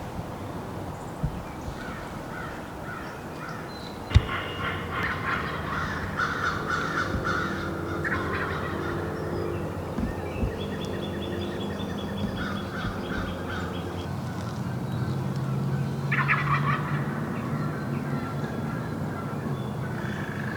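Wild turkey gobblers gobbling, a series of rapid rattling gobbles, the first and loudest about four seconds in and others following through the rest of the stretch.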